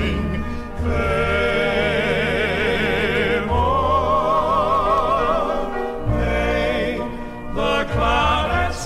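Male southern gospel quartet singing held chords in close harmony with heavy vibrato, with deep bass notes underneath. The chord changes several times.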